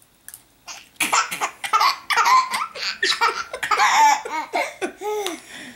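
Baby laughing hard, a run of high-pitched, breathy belly laughs that starts about a second in and carries on in quick bursts almost to the end.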